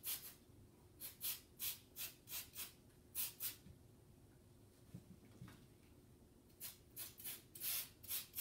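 Spray bottle of gun oil squirted in quick short hisses onto the parts of a field-stripped pistol, giving them a light coat of oil. The squirts come in two runs of about eight, a few seconds apart, with a couple of faint knocks in the pause.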